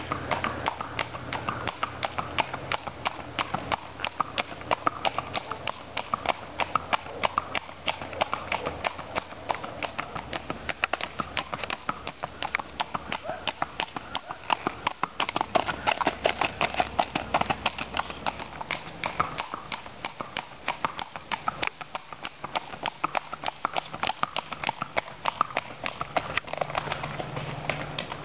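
Hoofbeats of a bay Missouri Fox Trotter mare clip-clopping on a paved road in her four-beat fox trot, a quick, even patter of hoof strikes throughout.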